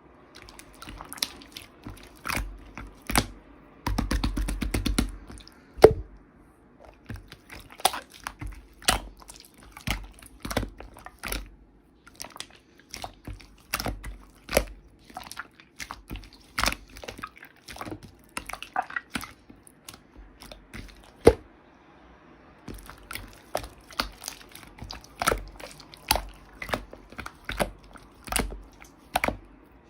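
Slime being squeezed and pressed by hand, giving an irregular string of sharp wet pops and clicks, with a dense crackling stretch about four seconds in.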